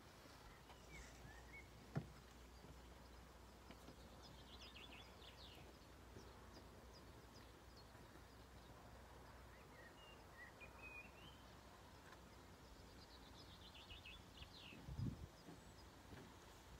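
Near-silent ambience with faint bird chirps in quick short series, a single sharp click about two seconds in, and a few low thumps near the end.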